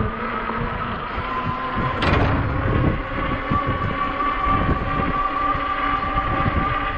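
A 20-inch e-bike on the move: a steady high whine from the hub motor, rising slightly, over rumbling tyre and wind noise. There is a sharp jolt about two seconds in, as the bike hits a bump.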